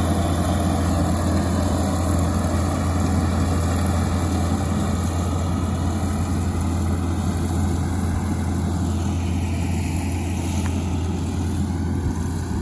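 Heavy farm machinery engine running steadily: a constant low hum with a rumble over it.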